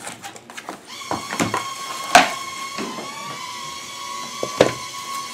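A cardboard box being opened and handled: flaps and packaging rustling, with a few sharp knocks, the sharpest about two seconds in. A steady high-pitched tone sounds underneath from about a second in.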